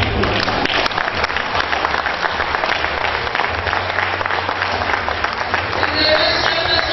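Audience applauding, many hands clapping in a dense, steady patter that thins near the end as a voice comes back.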